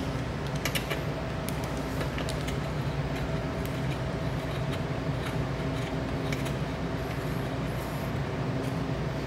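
Small metal clicks and ticks from a hex key and screws as the valve actuator is fastened onto the exhaust, scattered irregularly over a steady low hum.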